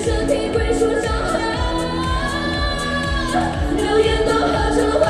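Live pop music with female singing over a fast, steady drum beat, including a long held sung note midway.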